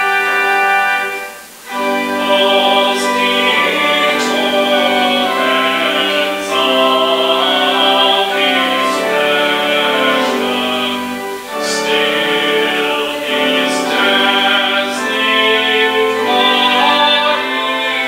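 Church prelude music: a singing voice over sustained instrumental accompaniment, with a brief pause about a second and a half in.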